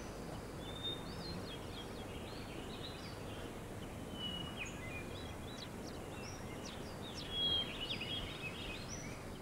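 Birds chirping in short, scattered calls over a steady outdoor background hiss.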